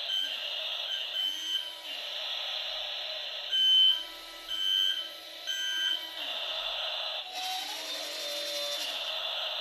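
Jamara 517J remote-control toy excavator's small electric motors whining, with three short electronic beeps about a second apart in the middle, like reversing beeps.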